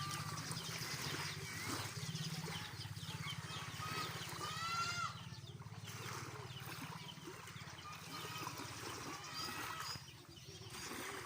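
Animal calls, a few short pitched cries that rise and fall, several seconds apart, over a steady low hum.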